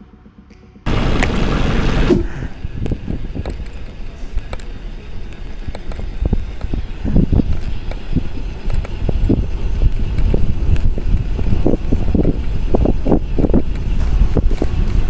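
Wind buffeting an action camera's microphone on a bicycle moving at speed, with low road rumble. It starts suddenly about a second in, loudest for the first second, then runs on as a steady rush with many short thumps.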